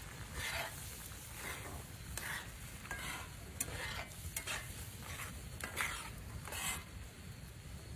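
A utensil stirring and scraping in a cooking pan: about nine short scraping strokes, a little under a second apart.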